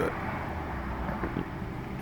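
A steady low rumble of background noise, with one faint short sound a little past the middle.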